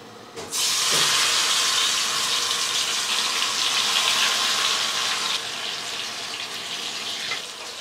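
Batter-coated cauliflower florets deep-frying in hot oil in an iron kadai. The oil breaks into a loud, steady sizzle as they drop in, about half a second in, and the sizzle eases a little after about five seconds.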